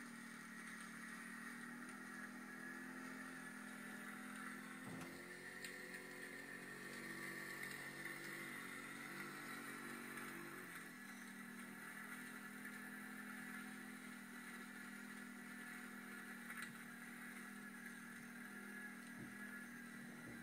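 Engines of an ATV and a snowmobile running under way, heard from the following ATV: a steady engine drone whose pitch shifts up and down between about five and eleven seconds in.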